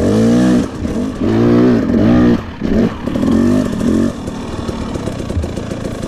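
Husqvarna dirt bike engine revving on the throttle, its pitch rising and falling in several surges. About four seconds in it drops back to a steady idle as the bike comes to a stop.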